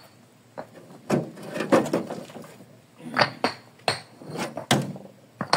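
Concrete brick pavers clinking and knocking against each other as they are picked out of a loaded wheelbarrow by hand, a string of sharp knocks at irregular intervals.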